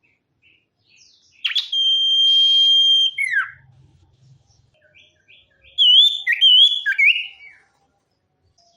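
Sirtu songbird singing: one long, steady, high whistle about a second and a half in that drops away into a falling note, then after a pause a quick run of warbling, wavering notes.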